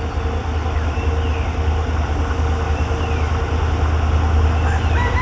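Diesel locomotive running under load as it approaches hauling a freight train, a steady heavy low rumble. Faint short falling bird chirps come every couple of seconds, and a horn note starts right at the end.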